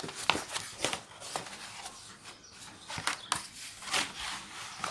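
Cardboard book mailer being handled and opened, with a paperback book sliding out: an irregular string of scrapes, crinkles and taps of cardboard and paper.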